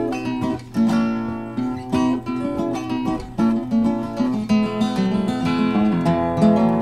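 Background music led by acoustic guitar, with plucked notes and strummed chords.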